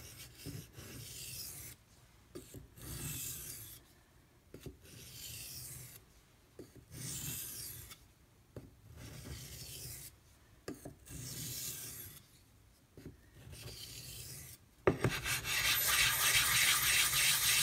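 Knife blade of LC200N steel being drawn across a wet whetstone in slow, separate strokes, each a scratchy hiss, about one every two seconds: light strokes to remove the burr. Near the end a knock is followed by a louder, continuous scraping hiss.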